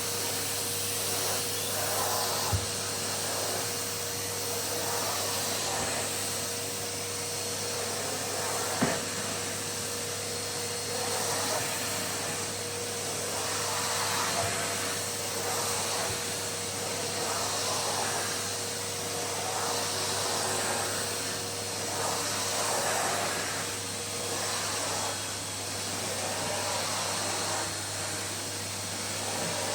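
Numatic canister vacuum cleaner running steadily with a faint whine, its suction rising and falling as the floor tool is pushed back and forth. Two short knocks at about two and a half seconds and nine seconds in.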